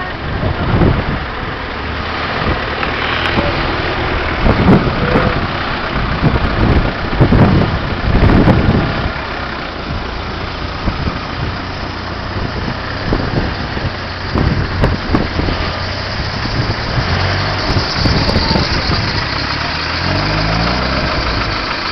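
A small off-road 4x4's engine revving hard in repeated surges as it spins its wheels in a muddy, water-filled rut, stuck and leaning over on its side, with the engine pitch climbing near the end.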